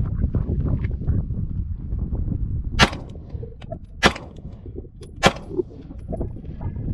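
Three pistol shots from a Girsan 1911 in 9mm, fired one at a time about a second and a quarter apart.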